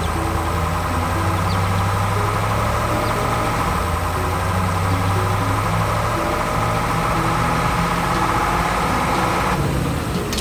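Heavy machine engine sound effect running steadily at idle, a low, even hum that cuts off about nine and a half seconds in.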